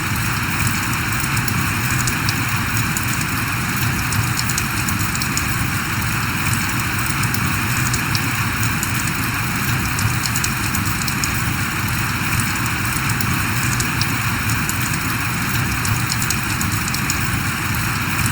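Steady rain falling, with many small drop hits on a surface.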